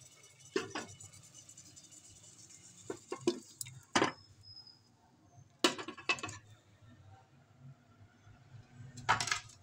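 Several clinks and knocks of a serving vessel and spoon against an aluminium cooking pot as cooked whole masoor and moong dal is tipped into the masala, over a low steady hum.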